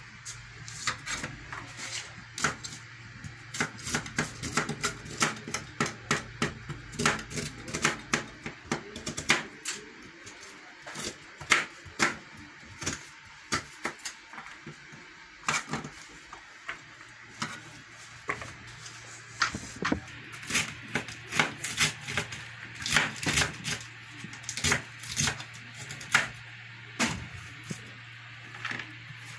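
Kitchen knife chopping vegetables on a plastic cutting board: quick runs of sharp strikes with short pauses between them.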